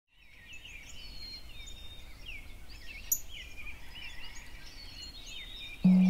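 Several songbirds chirping and trilling over a faint low rumble. One sharp click about halfway through, and music starts just before the end.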